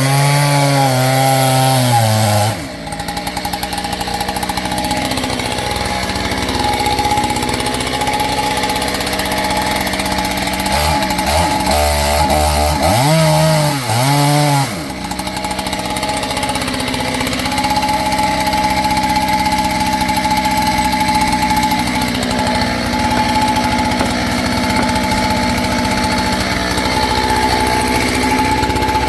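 Kit-built clone two-stroke chainsaw running while cutting into a tree trunk. The engine pitch drops a few seconds in, rises and wavers again around the middle, then holds fairly steady.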